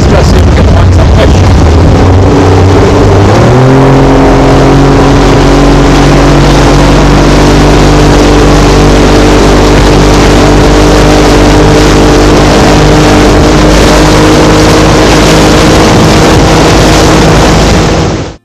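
Small boat's outboard motor running under way over a rush of wind and water noise. About three seconds in, the engine note rises as it picks up speed, then holds steady at the higher revs until the sound cuts off abruptly near the end.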